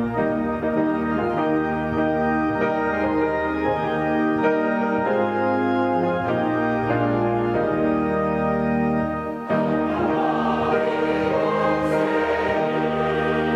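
Church choir singing a hymn with organ and piano accompaniment, in sustained chords. The sound grows fuller about two-thirds of the way through.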